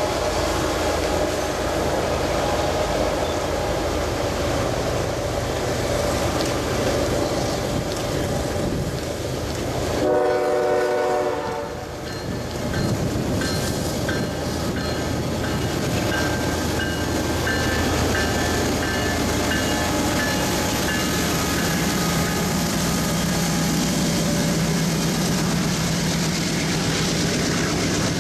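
CSX diesel freight locomotives running past with a steady engine drone, and a short blast of the locomotive's air horn chord about ten seconds in, lasting roughly two seconds.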